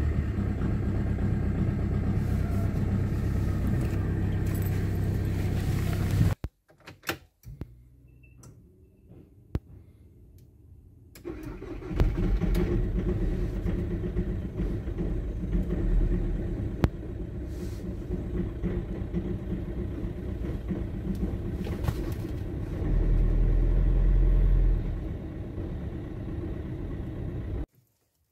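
Car engines just started from cold at about minus three degrees, running at idle one after another. A Volkswagen Passat's engine runs steadily until it cuts off about six seconds in. After a quiet stretch, a second Volkswagen engine catches about eleven seconds in and idles, louder for a couple of seconds near the end.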